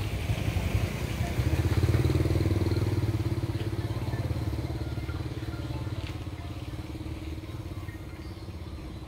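A motor vehicle engine running, loudest about two seconds in and then fading away steadily.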